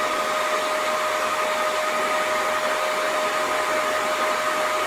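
A pair of 120 mm server fans, slightly overvolted at 13.5 V, running at full speed: a steady rush of air with a steady whine. They are held on by a 45 °C bimetallic thermostatic switch that has not yet cooled enough to open its contacts.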